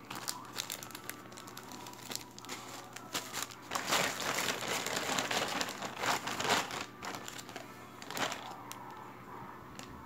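Clear zip-lock plastic bags crinkling as they are handled, loudest in the middle, with another loud crinkle about eight seconds in.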